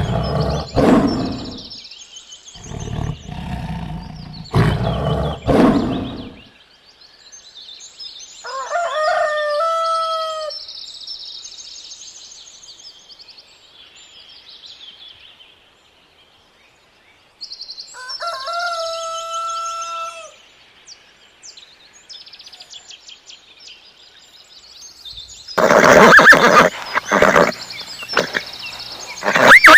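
Loud roaring for the first six seconds. Then a rooster crows twice, about nine seconds apart, with small birds chirping in the background. Loud animal calls start about 25 seconds in.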